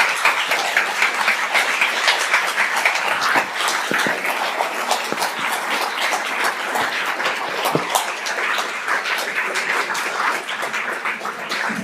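Audience applauding: many hands clapping steadily, a little softer in the second half.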